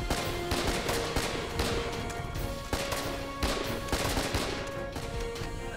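Repeated gunfire, bursts of machine-gun and rifle shots at an irregular rhythm, laid over background film music with held notes.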